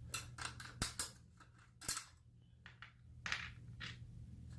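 Hand tools clicking and knocking against bicycle parts during a tyre repair: a run of sharp clicks, the loudest about one and two seconds in, and a brief scrape a little past three seconds, over a low steady hum.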